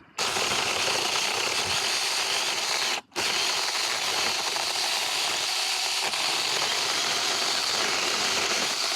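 Huing 6-inch cordless mini chainsaw running steadily as it cuts through a tree limb. It cuts out for a moment about three seconds in, then runs again.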